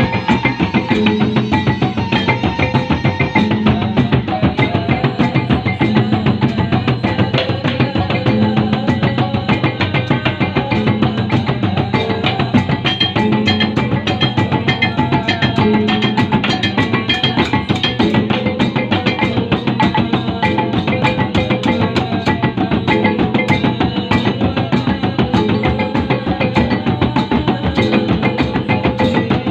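Gordang Sambilan ensemble playing: the row of tall cylindrical drums beaten with wooden sticks in a fast, dense interlocking rhythm, with small hand cymbals clashing along. The playing goes on steadily throughout, with a low ringing tone recurring about every second and a half.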